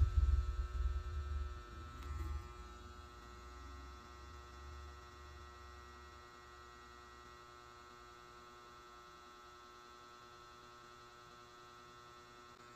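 Low rumble of handling noise on the microphone for the first two seconds or so, fading out. Then a faint, steady electrical hum holds through the rest.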